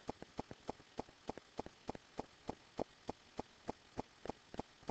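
A steady run of faint, sharp clicks, about five a second, in a loose repeating pattern.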